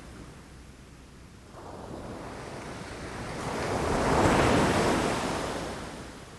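Ocean waves breaking against rocks: the surf builds from about a second and a half in, breaks loudest around the middle, and washes back down near the end, with wind noise on the microphone.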